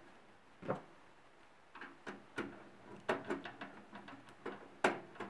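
A screwdriver driving a screw to fix a Wi-Fi card's metal bracket into a steel PC case's expansion slot: a string of small, irregular metallic clicks and taps, some with a short ring.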